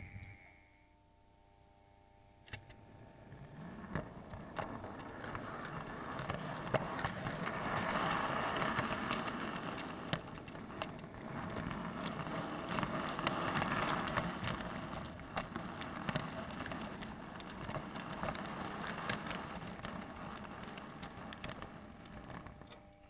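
Model train running along the track: a steady rolling rumble of wheels on rail, with irregular clicks as the wheels cross rail joints and points. It builds over the first few seconds and dies away near the end.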